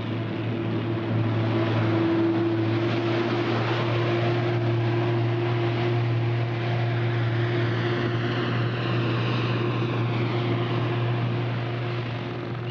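A loaded truck driving past and away along a highway: a steady low engine drone with tyre noise. It is loudest in the first part and eases off slightly toward the end.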